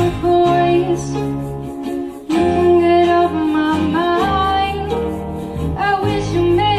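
Music: a pop-rock song with guitar and a female vocal melody.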